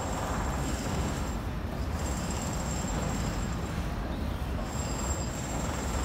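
Steady outdoor city traffic rumble, with a thin high-pitched whine that comes and goes a few times.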